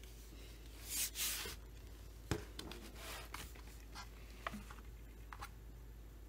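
Light handling noises from a chainsaw being looked over: two brief rustling swishes about a second in, a sharp click a little after two seconds, then scattered small clicks and taps.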